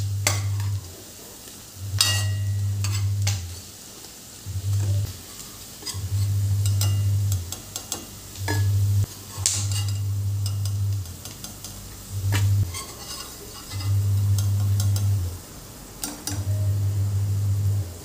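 Onion pakoras sizzling in hot oil in a stainless-steel kadhai, with a slotted steel spoon scraping and clinking against the pan as the fritters are turned and lifted out. A low hum from the cooktop cuts in and out every second or so and is the loudest sound.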